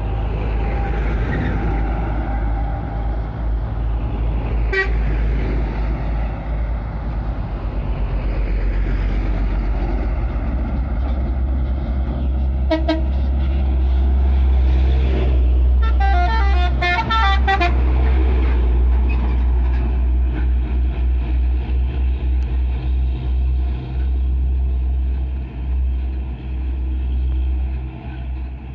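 Loaded coal dump trucks (Hino 500) drive past close by, their diesel engines running loudly. Short horn toots sound twice, then, about two-thirds through, a multi-tone horn plays rapidly changing notes for about two seconds.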